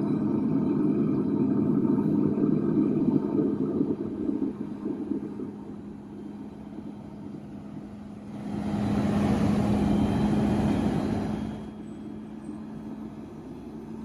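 Fire engine running steadily as it pumps water up through a hose stream: a constant hum under a rumbling noise, with a louder rushing hiss that swells for about three seconds past the middle.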